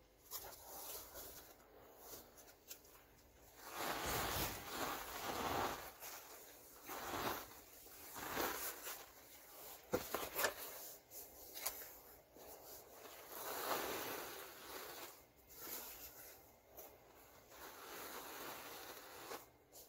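Fine white powder tipped out of a small plastic tub into a large plastic bin, falling in several soft rushing pours, with a few sharp knocks about ten seconds in.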